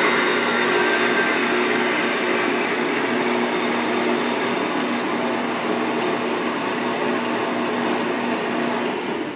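Kalamazoo 9x16 horizontal bandsaw running and cutting through a metal pipe held in its vise: a loud, steady motor-and-blade drone with a humming tone. It falls off sharply near the end.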